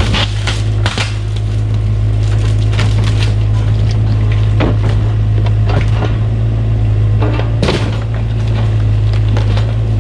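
Cat 303 mini excavator's diesel engine running with a steady low drone while its bucket crushes the shed's wooden framing: repeated sharp cracks and snaps of splintering lumber, loudest just after the start, about a second in, near the middle and about three-quarters through.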